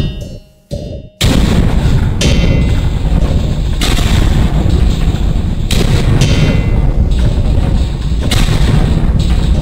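Harsh industrial noise music: a couple of sharp, quickly decaying hits, then about a second in a dense, distorted wall of noise with a heavy low end, flaring brighter every couple of seconds.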